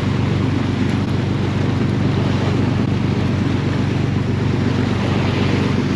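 Sportfishing boat's inboard engines running steadily, a low even drone, with wind on the microphone and the rush of water alongside.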